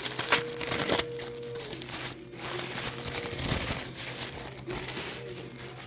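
Packaging crinkling and rustling as a small wrapped item is unwrapped by hand, in irregular bursts that are loudest about half a second to a second in.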